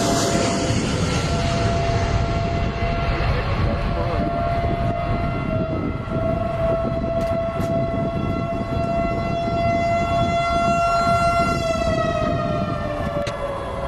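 Jet aircraft turbofan engines running: a broad roar with a steady high whine, whose pitch falls near the end.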